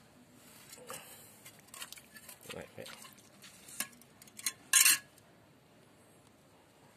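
A small hand hoe scraping and knocking in wet, muddy soil: a scatter of scrapes and clicks, the loudest and longest scrape about five seconds in.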